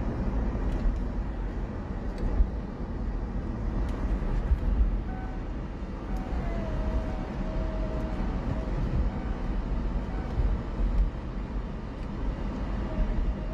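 Steady road and engine noise heard from inside a moving car, mostly a low rumble.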